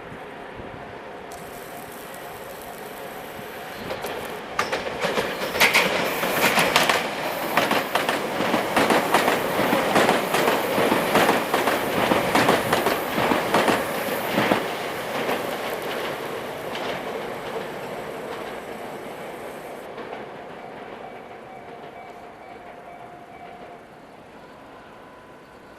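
Tobu Skytree Line commuter train passing close by, wheels clicking rapidly over the rail joints. It swells about four seconds in, is loudest for roughly ten seconds, then fades away as the train recedes.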